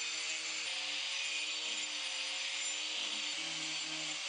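Handheld angle grinder with a carving disc running and grinding into a walnut block: a steady motor tone under a rough, even hiss.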